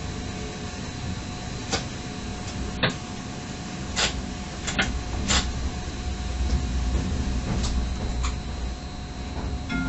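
Electric multiple unit train running, heard from inside the driver's cab: a steady low rumble with sharp, irregular clicks, about eight in all, as the wheels cross points and rail joints, under a faint steady high tone.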